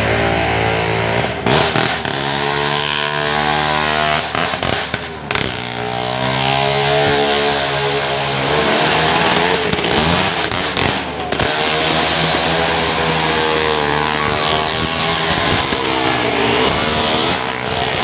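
Engines of the well-of-death show's motorcycles and cars revving, their pitch rising and falling in long sweeps, several engines overlapping.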